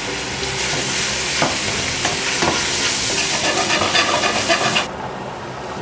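Beef chunks sizzling in hot oil in a stainless steel pot while a wooden spoon stirs and scrapes them, with a couple of knocks of the spoon against the pot. The sizzling cuts off suddenly near the end.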